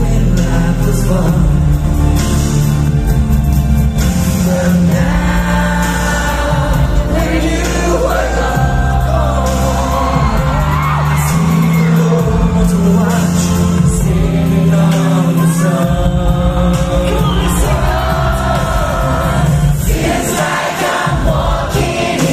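Live pop ballad heard from the audience in a large concert hall: male lead vocals and harmonies over a band with a heavy bass.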